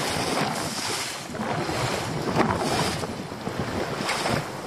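Wind buffeting the microphone over choppy sea, with waves slapping and splashing against the hull of a small open boat in several brief surges.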